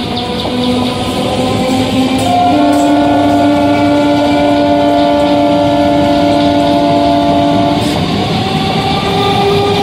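Indian Railways EMU local train running past over the rails with steady wheel-and-rail noise. About two seconds in, a train horn sounds one long multi-tone chord, held for about five seconds before it cuts off.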